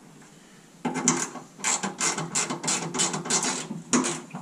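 Hand ratchet wrench clicking in quick back-and-forth strokes, about three or four clicks a second, starting about a second in, as it loosens a radiator mounting bolt.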